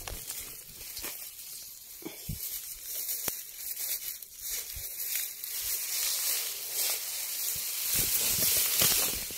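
Tall grass rustling and swishing as someone pushes through it on foot, with scattered crackles of dry stalks. It grows louder near the end as blades brush close against the phone.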